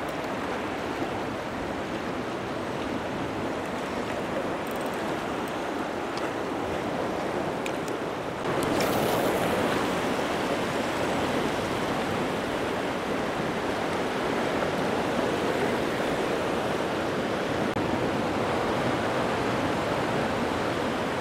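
Ocean surf and swell rushing against a rocky shoreline, a steady wash of water noise that gets suddenly louder about eight seconds in and stays that way.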